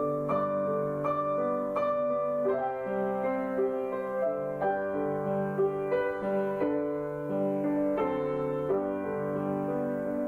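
Slow, gentle piano music: sustained chords with notes struck one after another, a higher note repeating about once a second at first.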